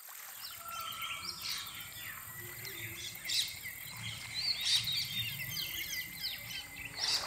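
Many small birds chirping and twittering in short, overlapping calls over a low steady hum, fading in at the start.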